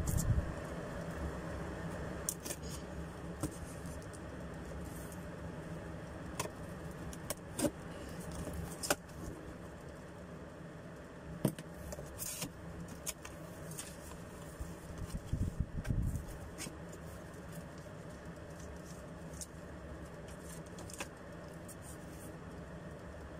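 Scissors cutting packing tape on a cardboard carton, then the box flaps and foam packing being opened and handled, with scattered clicks and rustles and a few louder knocks about two-thirds of the way through, over a steady low hum.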